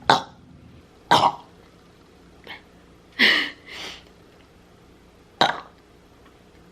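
A woman making a run of short, sharp throat sounds, about six of them spread roughly a second apart, four loud and two softer.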